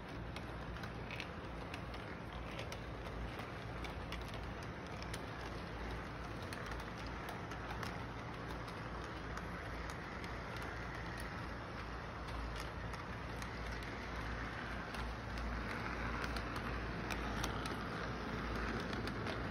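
Electric model train running along its track: a steady whirr of motor and wheels with scattered faint clicks over a low steady hum, getting louder near the end as the cars pass close.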